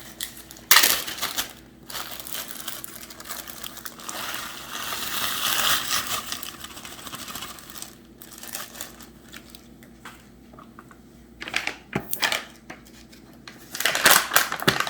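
Plastic packaging crinkling and rustling as ingredients for a nut crumble topping are handled, swelling for a couple of seconds in the middle, with a few sharp knocks.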